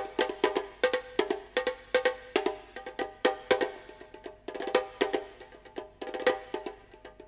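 Percussion music played through a small homemade speaker with 1.75-inch drivers and passive radiators: quick wood-block-like strikes, each with a ringing pitched tone, several a second, thinning out near the end.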